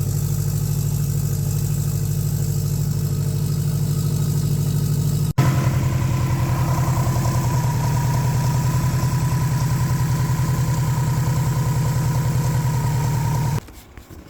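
Subaru Forester XT's freshly installed 2.5-litre turbocharged flat-four engine idling steadily. The sound drops out for an instant about five seconds in, then carries on with a steady higher tone over the idle, and stops abruptly just before the end.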